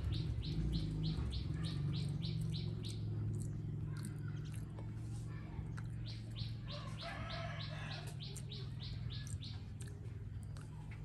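A bird calling in fast runs of short, high chirps, about three to four a second: one run ends about three seconds in, and a second run starts about six seconds in and lasts some three seconds.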